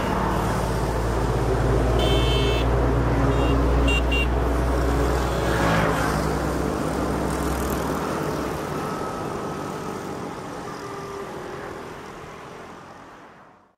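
A low, steady motor rumble mixed with surf. It eases off after about eight seconds and fades out at the end, with a few short high tones about two to four seconds in.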